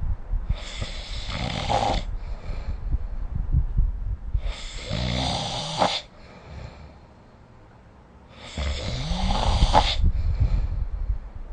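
A sleeping person snoring in slow, regular breaths about four seconds apart. Each breath is a rush of air with a low, fluttering rattle.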